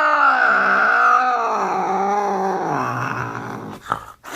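An angry cat's long growling yowl that wavers and sinks lower in pitch, then breaks off shortly before the end, followed by a brief sharp knock.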